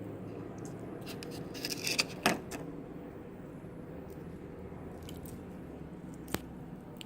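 A cluster of small clicks and clatter about two seconds in and a single sharp click near the end, the sound of small objects being handled, over a steady low room hum.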